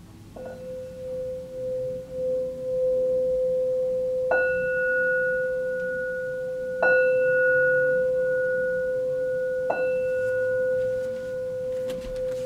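Brass singing bowl struck four times with a mallet: once softly, then three firmer strikes a couple of seconds apart. Each strike rings on with a low hum and a higher, brighter overtone, the ring pulsing slightly as it sustains. A few light clicks come near the end as the bowl is moved.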